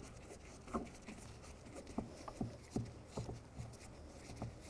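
Faint, irregular light clicks and taps, about two a second, of a Phillips screwdriver working a screw out at the interior door handle of a door trim panel.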